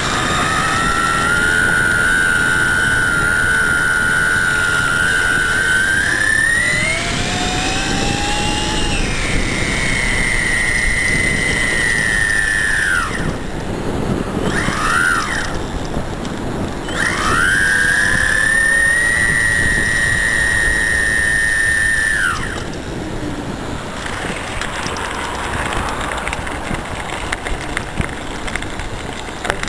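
High-pitched whine of an RC-motor electric bike's drive, an Astroflight motor turning a pulley reduction, under power. Its pitch climbs and settles with speed. Roughly halfway through it drops away, gives two short chirps, returns steady for about five seconds, then cuts out, leaving wind and tyre noise.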